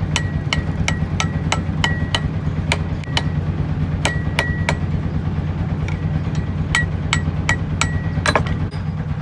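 Hand hammer striking a red-hot rebar sickle blade on a metal anvil, about three blows a second, many with a short metallic ring; the blows pause briefly around the middle. A steady low hum runs underneath.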